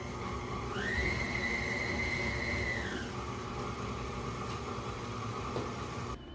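KitchenAid Artisan tilt-head stand mixer running with its flat beater in a bowl of cream cheese frosting: a steady motor whine that rises in pitch about a second in as the speed goes up, holds, drops back at about three seconds, and stops near the end.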